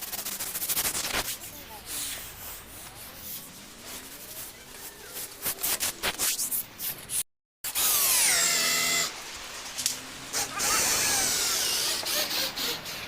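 Woodworking power tools working wood, in short cut-together clips, with a break in the sound about seven seconds in. After the break a motor's pitch falls.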